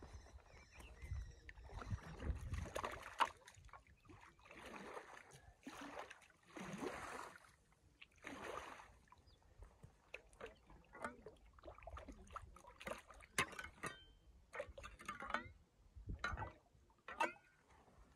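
Lake water splashing and sloshing as a small shovel is dipped in and lifted out, in a run of short splashes and drips, with rustling of a rain poncho in the first half.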